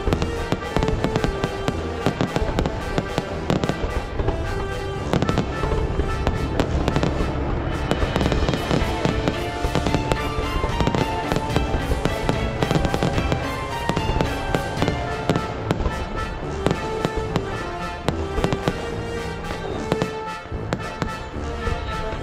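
Fireworks going off in a dense, irregular run of bangs and crackles, with music playing under them.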